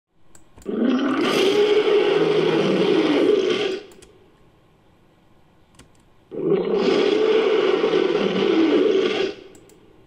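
Two long roars from a made-up hybrid dinosaur, about three seconds each with a pause between, a sound effect mixed from Allosaurus, Spinosaurus and monster roar recordings.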